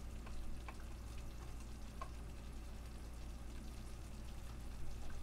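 Brown gravy simmering in a skillet: a faint sizzle with scattered small pops.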